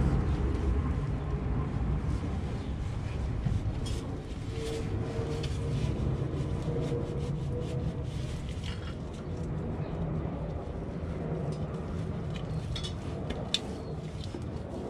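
Steady low rumble of background noise, with scattered soft clicks and rustles as a rag wipes around the rear differential's filler plug.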